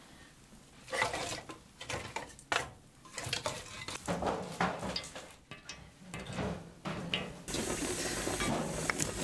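Water running and splashing in irregular bursts from a hanging push-rod washstand, with small clinks. About two thirds of the way in, a wood fire burning in the Russian stove's firebox takes over with a steady crackle.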